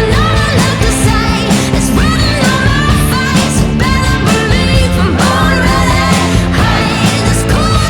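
Background music: a full-band song with a singing voice and a steady beat.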